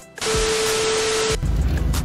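A burst of static hiss with a steady hum tone under it, about a second long, cutting off abruptly: an editing transition effect. Then the low rumble of a vehicle running.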